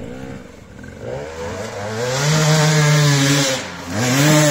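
Enduro motorcycle engine revving: the pitch climbs over about a second, holds high for a second or so, drops away, then revs up again near the end.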